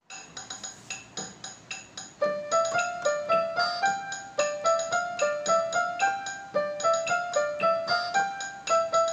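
Intro music: a quick melody of short piano-like keyboard notes, several a second, growing fuller about two seconds in.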